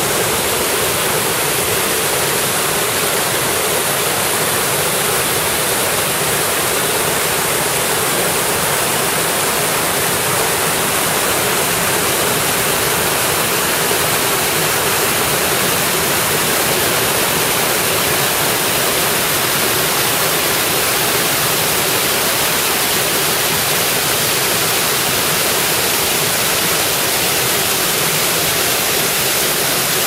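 Waterfall and stream water rushing over rocks: a steady, unbroken wash of falling and tumbling white water.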